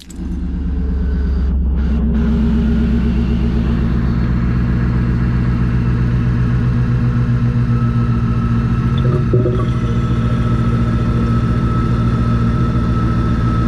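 The 2003 Ford Lightning's supercharged 5.4-litre V8 idling steadily. A thin steady whine joins about eight seconds in.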